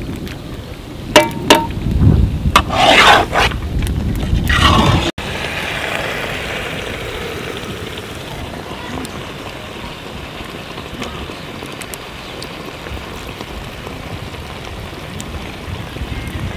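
A metal ladle knocks and scrapes in an iron kadai of thick goat-leg gravy over a low rumble, with a few sharp clicks and short bursts. After an abrupt cut about five seconds in, the hot gravy sizzles steadily in the pan.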